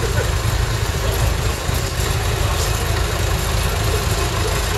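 Vintage tractor engines idling steadily, with an even low rumble.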